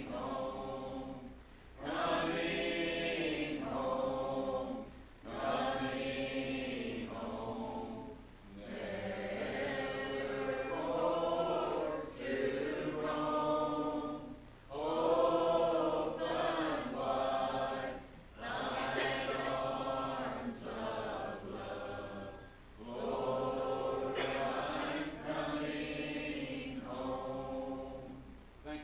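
A congregation singing a hymn a cappella, with mixed voices and no instruments, in phrases of a few seconds broken by short breaths. It is the invitation hymn, and it ends near the close.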